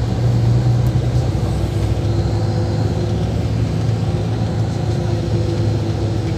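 Bus diesel engine running steadily as the bus drives, a continuous low hum heard from inside the cabin.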